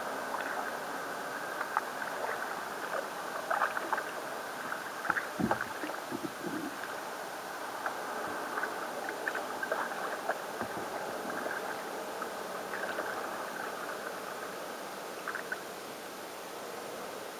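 Sea kayak being paddled through calm water: the paddle blades dip and pull, with water dripping and splashing off them over a steady wash of water, and small scattered ticks and splashes throughout.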